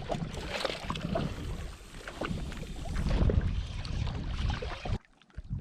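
Rumbling microphone handling and wind noise with scattered clicks and knocks as a fishing rod is cast and its reel worked. The sound cuts out briefly near the end.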